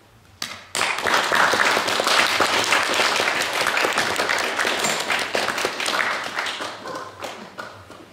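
Audience applauding, starting suddenly under a second in and dying away near the end.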